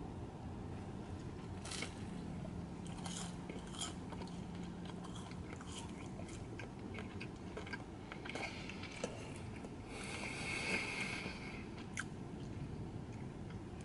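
Quiet chewing of fast food, with scattered soft mouth clicks and a brief louder rustle about ten seconds in.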